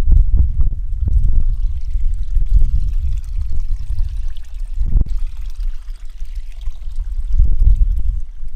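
EGO 56-volt battery lawn edger's 8-inch blade cutting into soil, a loud, uneven rushing and spattering with low rumble and scattered knocks as the blade throws dirt.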